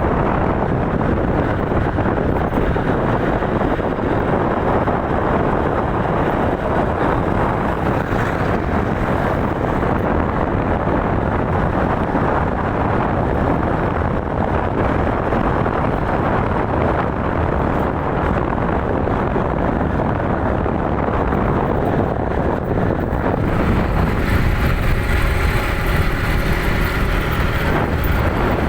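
Steady loud rumble of a vehicle in motion, with wind-like noise. A pitched hum with several tones joins for a few seconds near the end.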